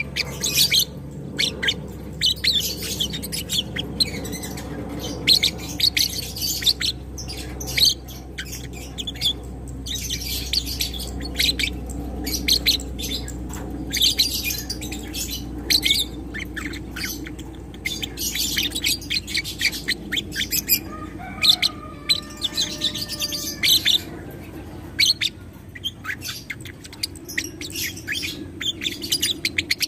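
Ewing gold lovebird singing its long chattering 'ngekek' song: fast runs of shrill ticks in bouts of a few seconds, broken by short pauses.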